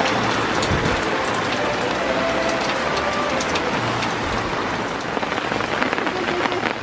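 Steady rain coming down on and around a canvas tent: a constant hiss with many separate drops striking.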